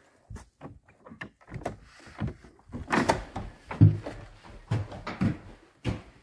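Wooden hut door being opened by its iron ring handle and latch: metal clicks and rattles, then irregular knocks and thuds of the door and of steps into a small wooden room, loudest about four seconds in.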